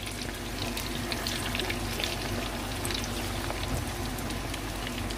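Oil bubbling and crackling steadily around potato kababs deep-frying in a pan, with many small pops.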